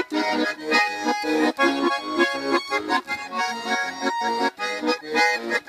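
Button accordion playing solo: a quick melody over rhythmic chords and bass notes.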